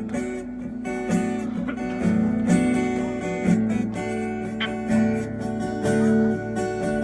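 Guitar strumming chords in a steady rhythm.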